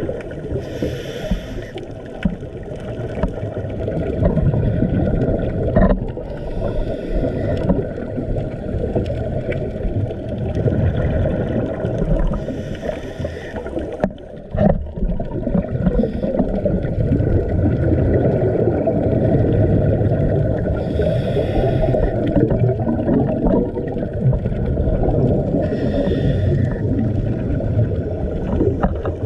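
Underwater recording of a scuba diver breathing through a regulator: a short hiss of breath about every five to six seconds over a steady low rumble of water noise.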